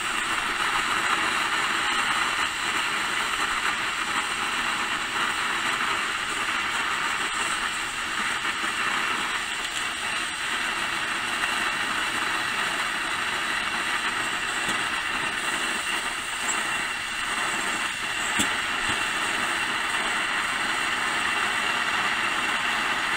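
Pressurized gasoline burner of an M1950 field stove running with a steady roar under a can of coffee that is just at the boil, with one light tap about eighteen seconds in.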